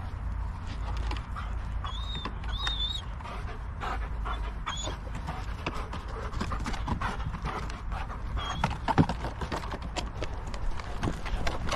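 White Swiss shepherd panting hard while running, with a dense patter of scuffing steps over a steady low rumble.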